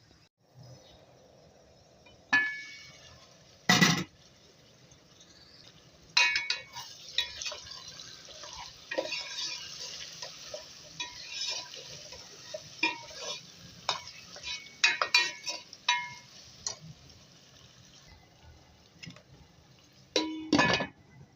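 Metal utensil and cookware clinking, knocking and scraping, as in stirring a pot: irregular strikes, several of them ringing briefly, busiest in the middle.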